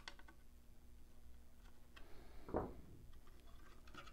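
Near-quiet room with faint handling of small plastic bracket parts: a few light clicks and one soft, short thump about two and a half seconds in.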